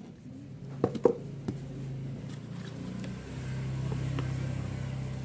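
A few sharp knocks about a second in, typical of a cardboard box being handled while it is unpacked. Under them is a steady low engine-like hum that grows louder after about three seconds.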